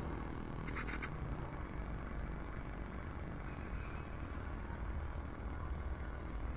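Small motor of a homemade model cable car turning its drive wheel and cable, a steady low hum, with a brief scraping rattle about a second in.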